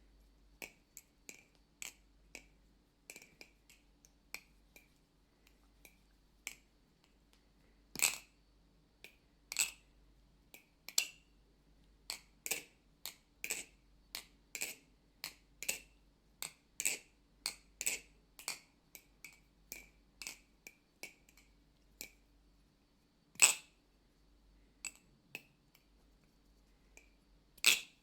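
Balisong (butterfly knife) being flipped, its handles and latch clicking and clacking at an irregular pace of about one to two a second, with two louder clacks, one about eight seconds in and one about twenty-three seconds in. The pivots are freshly lubricated with a thick oil, which makes the knife sound clanky and juicy.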